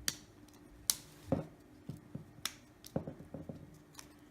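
Clips of an LG V20 phone's frame snapping into place as it is pressed around the edges: a series of about half a dozen sharp, irregularly spaced clicks.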